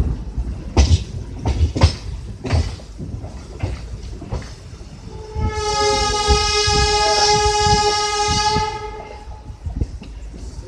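Passenger-coach wheels clattering over rail joints in a repeating knock, then a locomotive horn sounds a held two-note chord for about three seconds, starting around halfway through and fading out near the end.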